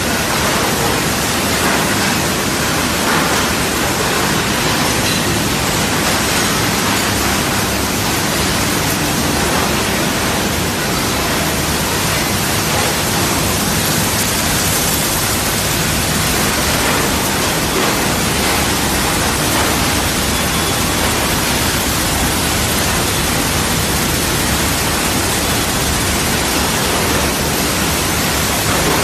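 Taiho SSXL-1200DS optical color sorter running on quartz sand: a loud, steady hiss of the sand stream pouring down the chutes and the compressed-air ejectors blowing out rejected grains.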